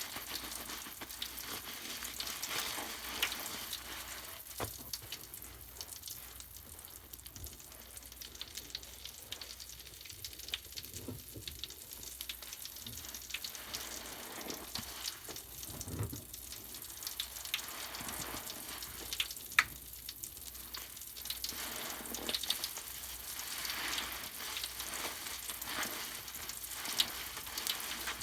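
Foam from purple Pinalen cleaner and a crackling bath product fizzing, a steady crackle of many tiny popping bubbles with now and then a louder tick.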